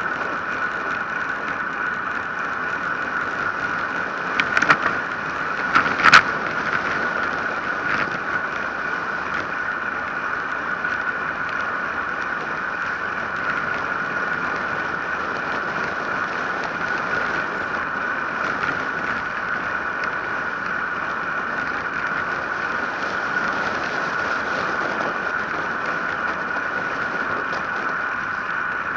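Steady rush of wind on an action camera's microphone, mixed with tyre noise from a road bicycle coasting fast downhill, with a few sharp knocks about four and a half and six seconds in.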